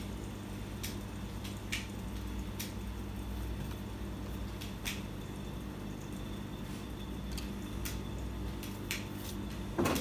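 LG 13 kg top-load washing machine running its spin cycle with a newly fitted drain motor: a steady low motor hum with a faint steady whine, and scattered light clicks.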